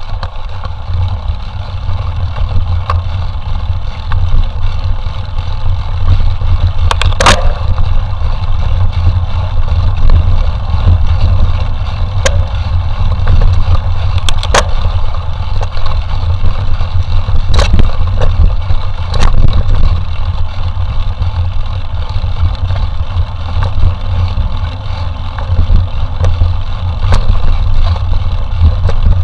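Wind buffeting the microphone with a loud, steady rumble as a mountain bike is ridden through the forest, with the occasional sharp clatter from the bike jolting over rough ground.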